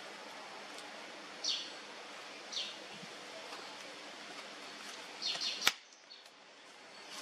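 Steady outdoor background hiss with a few short, high chirps, and a single sharp click near the end.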